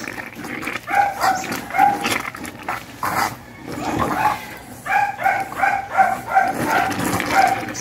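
An animal's short pitched yelps, repeated about three times a second: a short run about a second in, and a longer run in the second half.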